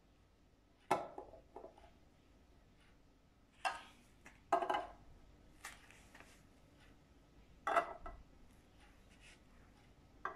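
Hollow toy stacking cubes knocking against one another as they are set down one by one into a tower: about half a dozen short knocks at uneven intervals, each dying away quickly.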